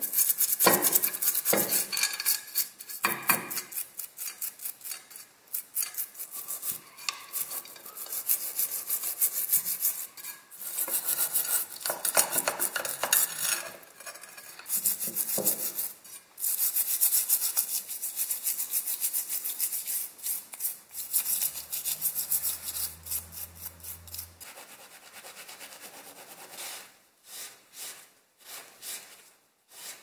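A stiff brush scrubbing grime off small metal fan-heater motor parts and the motor's coil in a glass dish of water: rapid back-and-forth scratching strokes, thinning to a few separate strokes near the end.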